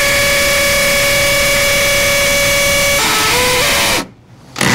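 DeWalt cordless drill running at steady speed while drilling a fixing hole through the back of a plastic socket box into the wall. Its whine drops in pitch about three seconds in and stops about a second later. It starts again with a rising whine near the end.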